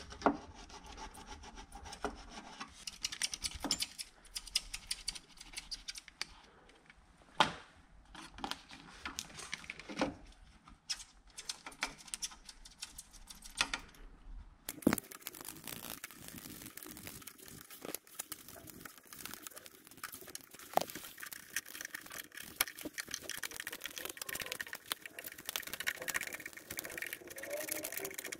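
Irregular scraping and rubbing as a glued plastic door covering is cut and pried free with a utility knife and plastic trim levers, with scattered sharp clicks.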